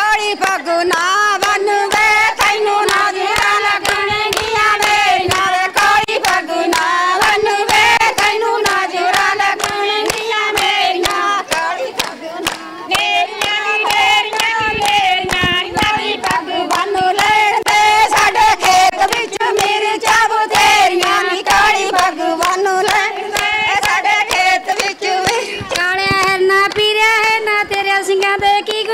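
A group of women singing a Punjabi folk boli together in unison, with many hands clapping along, as in giddha.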